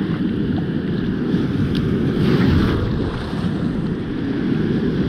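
Wind buffeting the microphone over the wash of shallow surf, with a swell of foam hiss about two seconds in.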